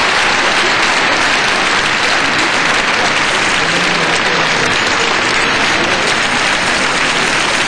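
Arena audience applauding, a steady dense clapping.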